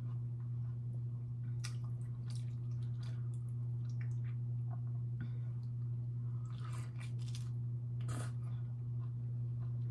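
Hands working a juicy orange: scattered wet squishes and small clicks, a sharper one about eight seconds in, over a steady low hum.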